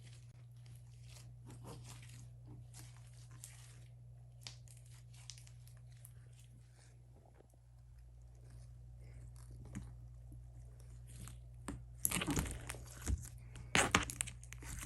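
Slime being squeezed and stretched by hand, giving faint sticky clicks and crackles throughout. The crackling grows louder and denser about twelve seconds in.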